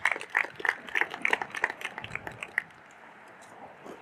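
A small crowd clapping in a scattered round of applause that dies away about two and a half seconds in, leaving faint steady background noise.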